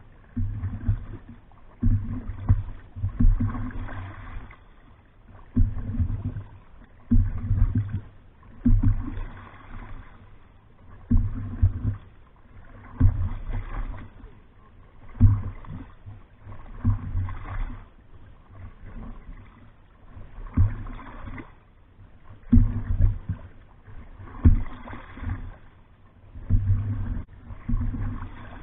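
Choppy water slapping and rushing against the bow of an open canoe moving at speed, coming in uneven surges every second or two with heavy low thuds.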